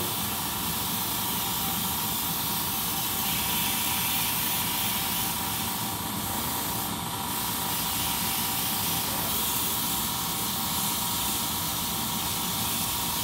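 Airbrush spraying paint onto a pinball machine cabinet: a steady, unbroken hiss of compressed air.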